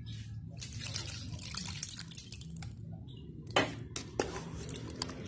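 Water poured from a glass into an aluminium pot of rice and chicken, splashing for about three seconds. Then a couple of sharp knocks, the loudest about three and a half seconds in.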